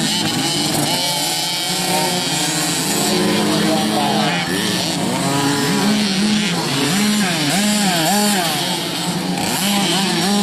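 Dirt bike engines revving as the bikes race over the track, their pitch rising and falling with the throttle, with a run of quick up-and-down revs near the end.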